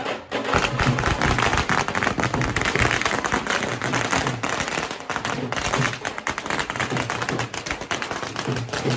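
A dense, rapid crackle of many sharp snaps lasting several seconds, thinning out over the last few seconds.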